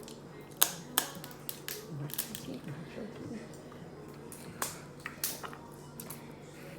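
Sharp cracks and clicks of boiled seafood shells being broken open by hand. They come as separate snaps, the two loudest within the first second and more scattered after.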